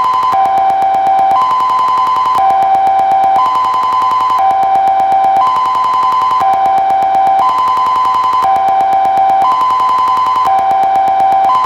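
Kockum Sonics Delta-4 TK siren sounding its fire alarm signal: a loud two-tone high–low alternation, each tone held about a second, repeating steadily.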